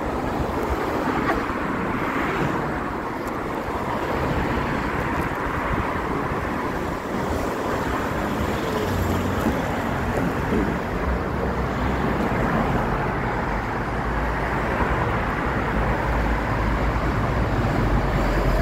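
Road traffic on a city street: cars driving past in a steady noise of tyres and engines, with a deeper rumble building near the end as a car passes close.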